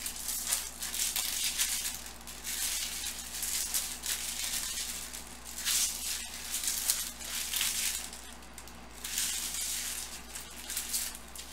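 Baseball card pack wrappers crinkling as they are torn open, with cards rustling and sliding as the stack is handled. The rustling comes in irregular bursts.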